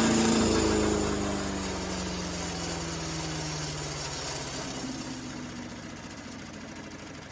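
Craftsman wood chipper's small gas engine shut off, its pitch falling steadily as the engine and chipper rotor coast down over about five seconds.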